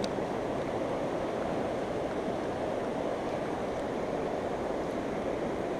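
Steady rush of a flooded, fast-running river.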